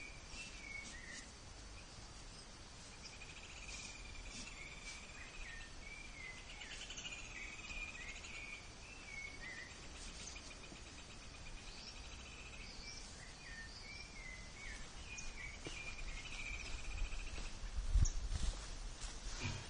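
Outdoor ambience of small birds chirping over and over, short calls repeated throughout, with a few buzzy insect-like trills. A brief low thump near the end, from handling of the camera.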